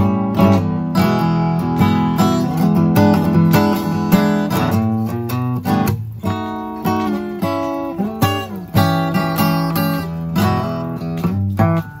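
Acoustic guitar played solo, strummed and picked chords changing every second or two, with short breaks between phrases.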